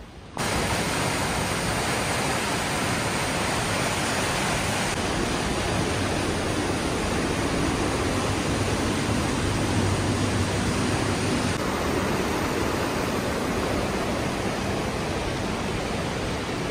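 Steady rushing of water at a paper mill's large iron water wheel, cutting in suddenly just after the start.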